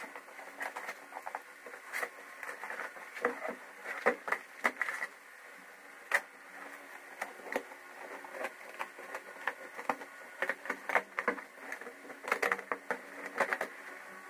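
Irregular knocks, taps and scrapes of hands working over a rotted plywood golf-cart seat board.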